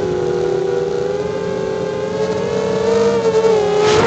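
Quadcopter's electric motors and propellers whining, heard from the onboard camera: several close tones that waver in pitch as the throttle changes. It grows louder about three seconds in, with a brief rush of air noise near the end.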